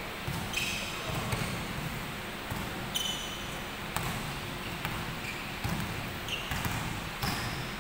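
Basketball being dribbled on a hardwood gym floor, irregular bouncing knocks, with a few short high sneaker squeaks as players move on the court.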